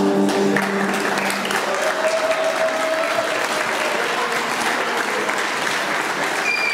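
Audience applauding in a large hall, steadily, with the last held notes of music dying away about half a second in.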